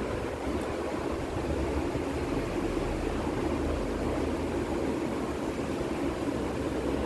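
Steady rushing background noise with a low hum underneath, even throughout.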